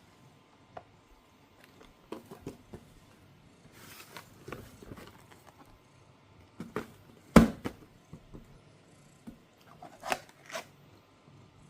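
Household handling sounds: scattered light taps and clicks with a brief rustle, and one louder thump about seven seconds in.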